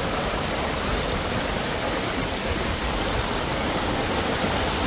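Water rushing steadily down a flooded rock slot canyon, a shallow stream and small waterfalls making an even, unbroken hiss.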